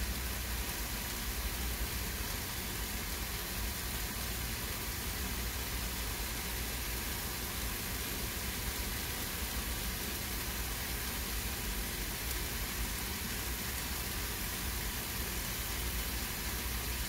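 A big stockpot of beef soup at a rolling boil: a steady bubbling hiss with a low rumble underneath, even and unbroken.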